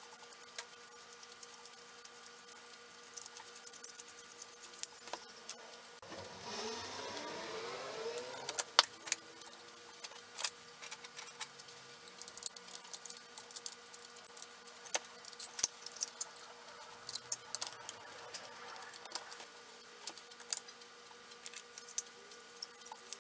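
Small plastic and metal parts of a Unimat 1 toy lathe kit being handled and fitted together by hand: scattered sharp clicks, clinks and rattles. A brief rising whir about six seconds in.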